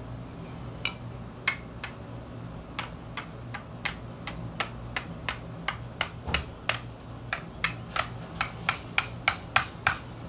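Claw hammer striking the end of a screwdriver driven into a whole green coconut, a quick run of sharp taps about three a second that grow louder toward the end, punching a drain hole through the husk and shell.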